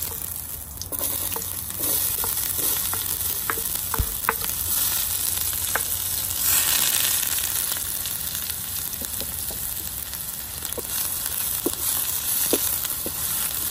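Chopped onion sizzling in hot oil in an enamel pan as it fries golden: a steady hiss that builds over the first couple of seconds, with scattered spits and pops and one knock about four seconds in. A wooden spoon stirs the onion near the end.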